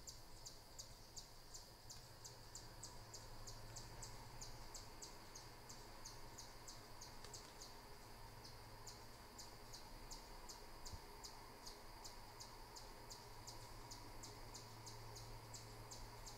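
Faint rhythmic insect chirping, about three chirps a second, with a faint low steady hum beneath it.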